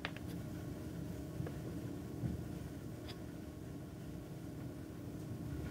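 Low steady background hum of room noise, with a faint click about two seconds in and another about three seconds in.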